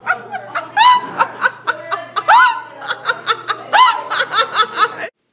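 A young woman laughing in a long fit of quick repeated ha's that rise and fall in pitch, cut off suddenly near the end.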